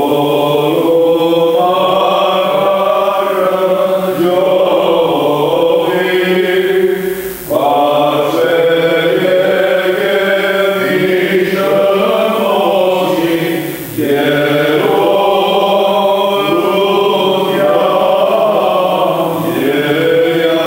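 Armenian liturgical requiem chant: voices singing a slow melody over a held low drone. It comes in long phrases of about six to seven seconds, each broken by a short breath.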